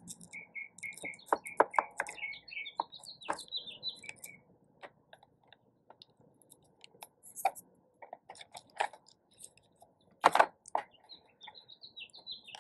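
Small clicks, taps and scratches of a pointed hand tool working tissue paper glued over a plastic salt cartridge, the sharpest clicks about one and a half and ten seconds in. A songbird chirps in the background, a run of repeated notes at the start, then a quick higher trill, and the trill again near the end.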